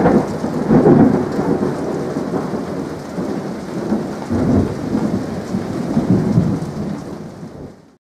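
Thunder rumbling over steady rain, loudest in the first second or so, then rolling on and fading out near the end.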